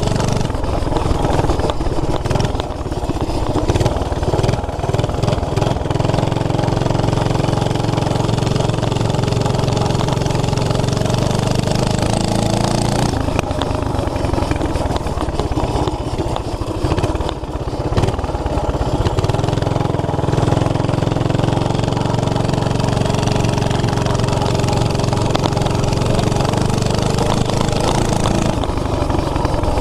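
Single-cylinder 5 hp flathead Briggs & Stratton engine on a mini bike running through an open homemade header, its note changing pitch about thirteen seconds in and again a few seconds later.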